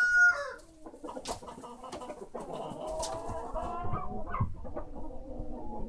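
Chickens: a rooster's crow ends on a falling note in the first half-second, then a flock of chickens clucking.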